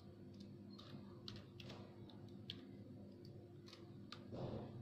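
Computer keyboard typed slowly, one key at a time, giving several faint separate clicks at uneven intervals over a low steady hum.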